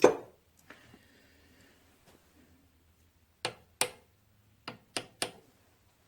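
Metal parts being handled on a workbench: a sharp knock right at the start, then a run of five short clicks and taps between about three and a half and five and a half seconds in.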